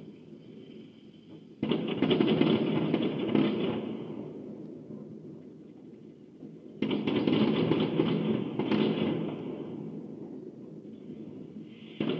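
Fireworks going off in two salvos, about a second and a half in and again near seven seconds, each a sudden dense crackle of many quick bangs that fades over a few seconds; a third salvo starts right at the end.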